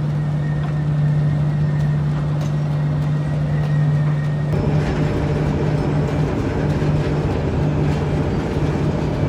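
Heavy machinery engine running with a steady low drone; about four and a half seconds in it turns rougher and fuller, the drone breaking up.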